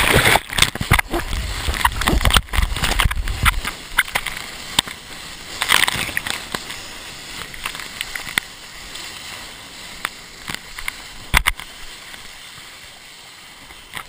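Ocean whitewater churning and sloshing around a wrist-mounted GoPro in its waterproof housing as the surfer is tumbled in the surf. A heavy low rumble fills the first few seconds, then eases to lighter rushing water with scattered sharp splashes.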